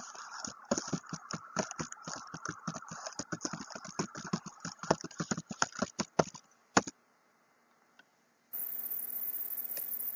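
Computer keyboard typing: rapid, irregular key clicks for about seven seconds as a web address is entered, ending with one separate click. A faint steady hum sits under the first half, and a steady hiss starts near the end.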